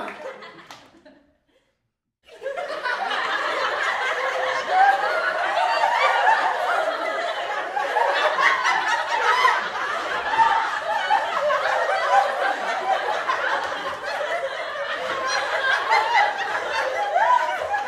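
Many people laughing together, a dense steady wash of overlapping laughs that starts about two seconds in after a brief silence.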